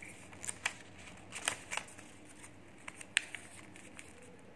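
A sheet of paper being folded and pressed flat by hand: scattered short crackles and rustles of the paper, the sharpest about three seconds in.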